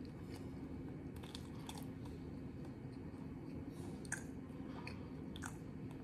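A person chewing a mouthful of beef sandwich with the mouth closed, with a few small wet clicks and crunches scattered through it, over a steady low hum.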